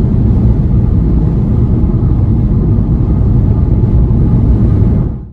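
A van driving at highway speed, heard from inside the cab: a loud, steady low rumble of road and wind noise that cuts off abruptly near the end.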